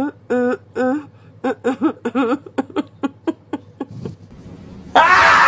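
A woman's high-pitched laughter, a run of short rising-and-falling syllables that speeds up before dying away. Near the end, a loud burst of hissing noise starts abruptly.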